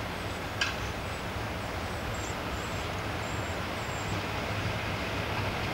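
Class 56 diesel locomotive's Ruston-Paxman V16 engine running as it approaches from a distance, a steady low hum growing gradually louder. A single sharp click about half a second in.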